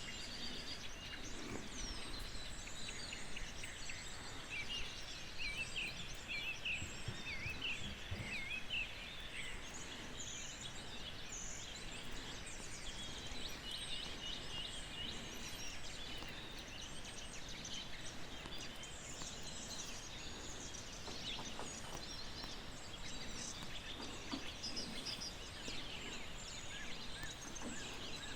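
Several wild birds singing and chirping, many short overlapping calls and trills, over a steady outdoor background hiss.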